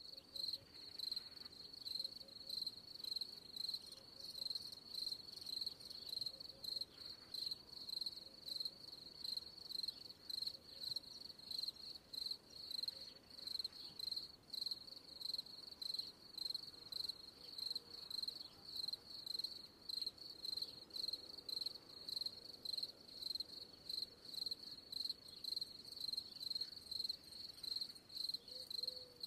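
Crickets chirping steadily in a high-pitched, even rhythm of about two chirps a second, as a recorded sound effect laid over the video.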